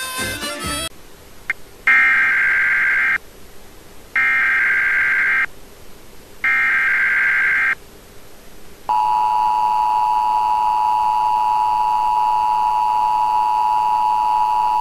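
Emergency Alert System broadcast tones: three short buzzy bursts of the digital alert header about a second apart, then the steady two-tone attention signal. A bit of music ends about a second in.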